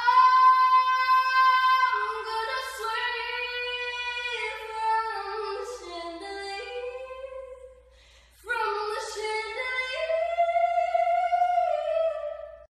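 A woman's voice singing long, high wordless notes, in two phrases with a short break about eight seconds in.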